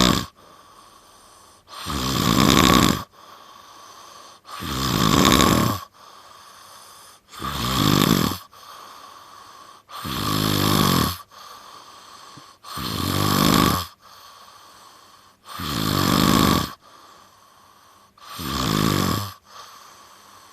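A person snoring loudly: seven rough snores, each about a second long, repeating steadily roughly every three seconds, with much quieter stretches between them.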